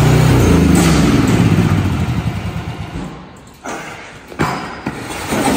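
HT10 mini excavator's engine running, its note stopping about half a second in as the machine tips over backwards off a small trailer, followed by metal clatter and several thumps in the second half as it comes to rest on its end.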